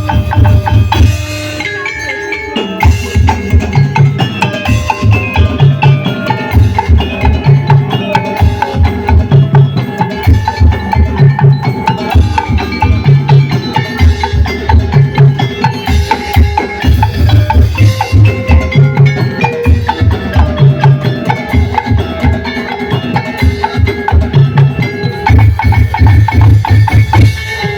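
Live percussion ensemble music: wood blocks and drums over a melodic line on pitched percussion, with a deep drum beating steadily underneath and growing denser in a few stretches.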